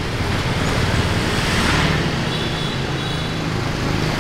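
Street traffic noise: a vehicle engine running close by, its steady low hum setting in about halfway through, with a rush of passing-traffic noise just before.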